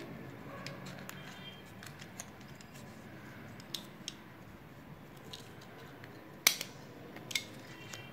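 Small hand stapler pressed shut on a folded paper cup: a few light clicks, the sharpest about two-thirds of the way through.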